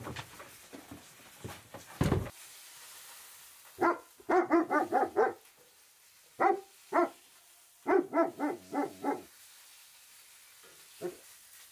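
German Shepherd dog barking in quick runs: about six barks, two single barks, another six, then two faint ones near the end. A few sharp knocks come before the barking, in the first two seconds.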